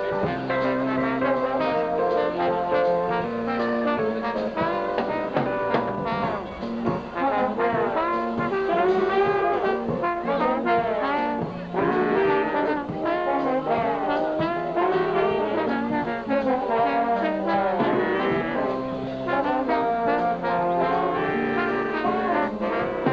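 High school band playing, led by trombones and trumpets: a moving melody over held low notes.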